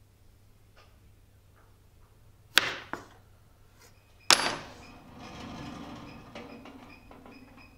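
Two sharp, echoing hits about a second and a half apart, the second louder with a long ringing tail. A sustained hum with faint high tones follows and fades near the end.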